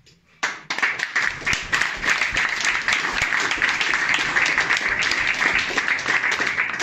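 A small audience clapping and applauding, starting abruptly about half a second in and dying away near the end.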